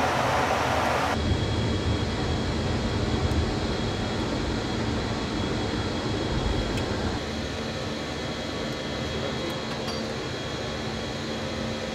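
Steady rush and rumble of jet engines and airflow heard inside a jet aircraft's cockpit, with a faint high whine running through it. The noise shifts abruptly about a second in and again about seven seconds in.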